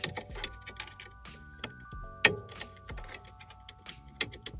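Sharp, irregular clicks and snaps of a Dell Inspiron laptop's bottom case being pried loose with a pry tool, its retaining clips popping free one after another, the loudest about two seconds in. Background music with held notes plays underneath.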